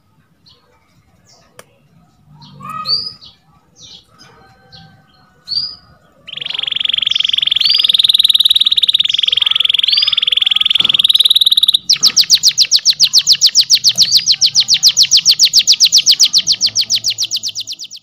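Domestic canary singing: scattered short chirps, then about six seconds in a fast rolling trill, which about twelve seconds in changes to a louder, slower pulsed trill of about eight notes a second that fades near the end.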